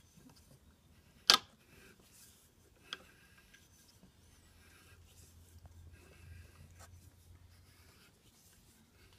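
Faint repeated scraping of a hand reamer being turned through a Model A Ford spindle bushing on a lubricated cleanup pass to clear leftover chips. A sharp click comes about a second in, and a smaller one about three seconds in.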